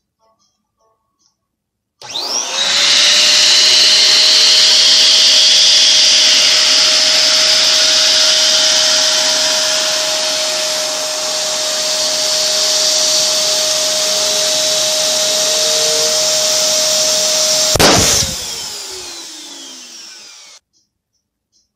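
Electric balloon pump starts about two seconds in and runs with a steady whine, inflating a latex balloon until the balloon bursts with a sharp pop near the end. The pump motor then winds down with a falling whine and stops.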